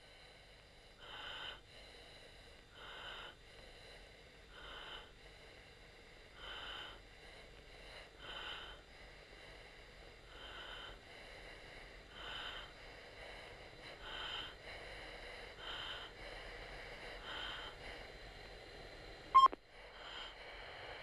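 A jet pilot's steady breathing picked up by the oxygen-mask microphone on the cockpit intercom, one breath about every two seconds over a faint steady hiss. A single sharp click sounds near the end.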